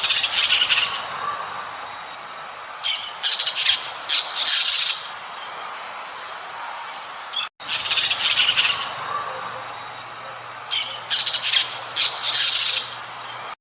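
Harsh, scratchy bird squawks in short bursts, a few clustered together, the same run of calls heard twice with a brief break between.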